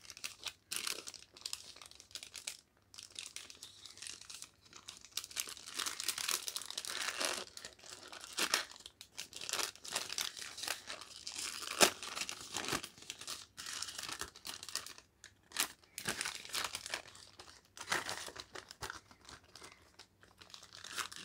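Paper takeaway bag crinkling and rustling as it is handled and opened by hand, in irregular crackly bursts, with one sharper snap about twelve seconds in.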